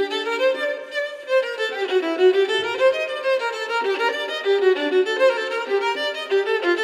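Background music with a quick-moving melody of short notes stepping up and down.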